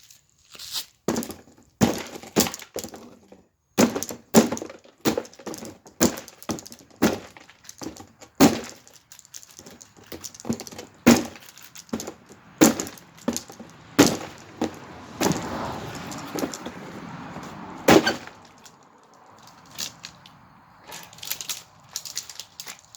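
Plastic pieces of a Galaxy box fan being broken apart: an irregular run of sharp cracks and knocks, about one or two a second, with a stretch of rougher continuous noise about two-thirds of the way in, then fewer and fainter hits near the end.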